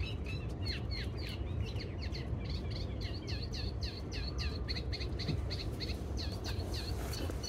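Birds chirping: a rapid, steady series of short, high, downward-sliding chirps, several a second, over a steady low rumble.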